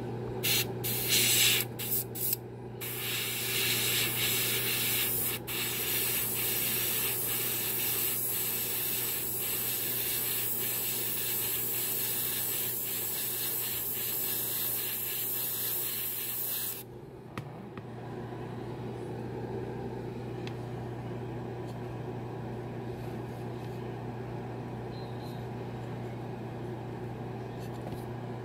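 Airbrush spraying paint: a few short hissing bursts, then a long steady spray that cuts off suddenly a little past halfway. A steady low hum runs underneath throughout.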